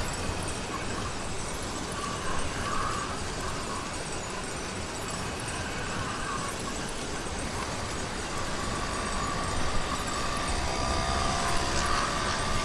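Small YD100 bicycle engine running under way on a motorized bicycle, mixed with wind noise on the microphone. Its pitch climbs gradually near the end as the engine picks up speed.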